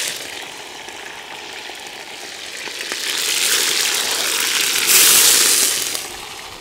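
Beef searing in hot fat in a pot over a wood fire: a steady sizzle that swells about three seconds in and is loudest around five seconds in.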